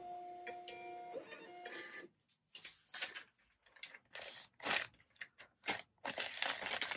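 A label printer's motor whining at a few steady pitches that step from one to the next, stopping about two seconds in. Then come short, scattered rustles and crinkles of packaging being handled.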